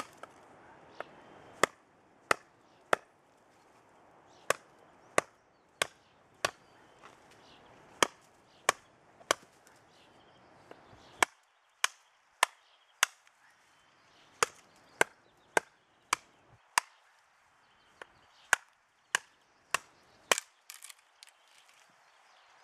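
Knivsmed Strømeng leuku, a large Sami knife, chopping into an upright wooden pole: a long series of sharp single chops, a little under two a second in runs of several, with short breaks between runs.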